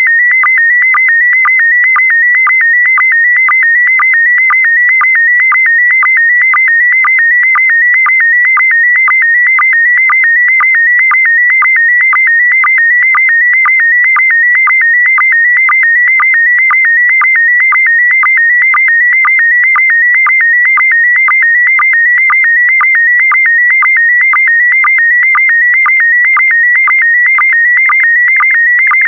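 PD120 slow-scan television (SSTV) image signal: a loud, continuous electronic tone wavering around 2 kHz as it carries picture lines, broken by short dips to a lower sync tone about twice a second.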